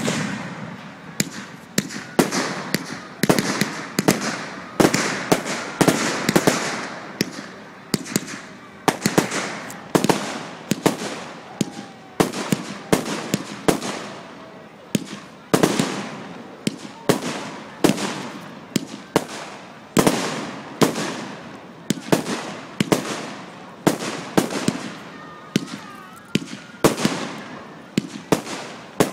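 Fireworks display: aerial shells bursting one after another, dozens of sharp booms at about one to two a second, each trailing off in an echo.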